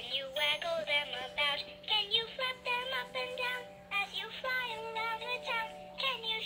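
Animated plush elephant toy playing its recorded song: a high, childlike synthetic voice singing a simple tune.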